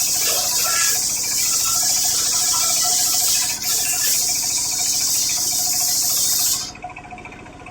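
Homemade circular saw cutting coconut-palm (glugu) wood: a loud, high-pitched cutting noise over the steady running of the machine's motor. The cutting noise stops abruptly about seven seconds in, and the motor keeps running.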